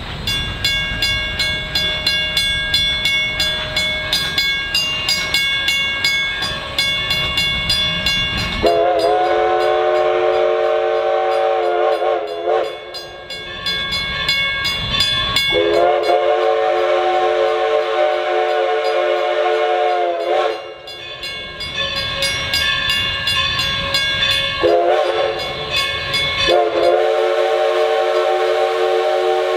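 Steam locomotive No. 11 working along, its exhaust chuffing in a steady beat, then its steam whistle sounding two long blasts, a short one and a long one, the long-long-short-long signal for a grade crossing.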